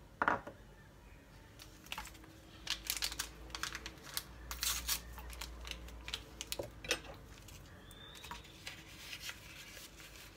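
Kitchen handling sounds: a small ceramic bowl set down on the worktop with a sharp clack, then runs of light clicks and rustling as a paper sachet of baking powder is picked up and handled.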